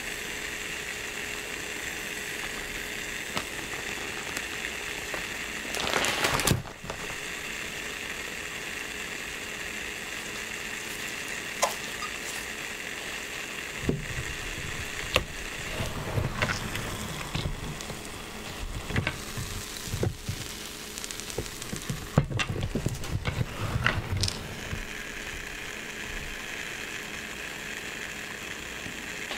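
Mini butter croissant dough sizzling inside a closed waffle maker, a steady rain-like hiss. There is one louder burst about six seconds in, and a run of uneven pops and crackles through the middle.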